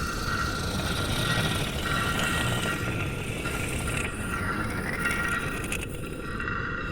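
Steady low rumbling noise with faint, shifting electronic tones and radio-like static layered above it: a synthesized space-ambience noise track with eerie alien-signal sounds.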